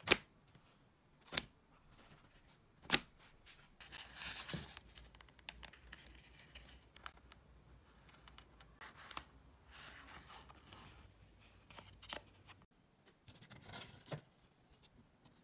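Leather and metal tools handled on a cutting mat: a few sharp clicks and taps, loudest near the start, with leather rustling and scraping between them as a leather wrap is fitted around a pair of pliers' handles.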